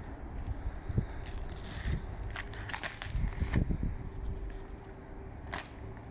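Packaging crackling and crinkling as it is handled, with scattered sharp clicks and snaps during unboxing.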